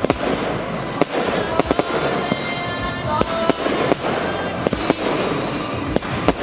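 Fireworks going off: many sharp bangs at irregular intervals over continuous crackling, with music playing underneath.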